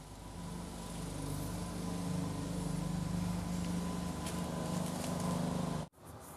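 Cordless drill running steadily, spinning a steering-motor armature clamped in its chuck; the hum cuts off abruptly near the end.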